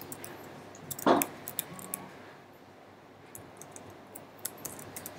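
Computer keyboard keystrokes, a few scattered taps at a time while text is typed, with a brief vocal sound about a second in.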